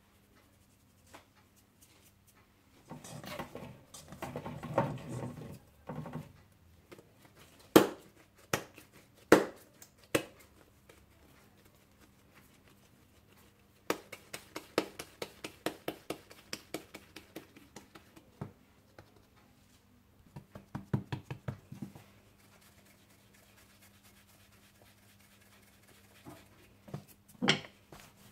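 Rolling pin rolling out small rounds of pita dough on a board: short runs of light rhythmic clicks, about three a second, as the pin goes back and forth, with a few sharper single knocks and some handling noise in between.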